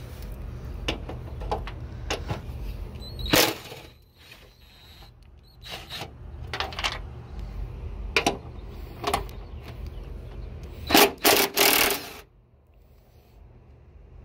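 Ratchet wrench clicking in several short bursts while backing out fender bolts, with knocks of the tool being handled. The longest and loudest burst comes near the end.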